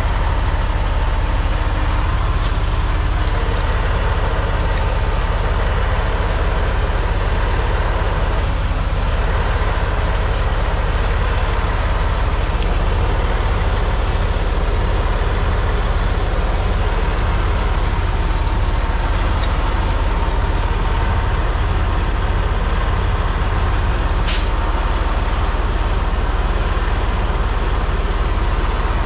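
Semi tractor's diesel engine idling steadily to build air-brake pressure. Faint metal clicks from wrenches on the gladhand fitting come now and then, with a brief sharp sound about 24 seconds in.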